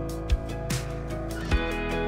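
Background music with a beat.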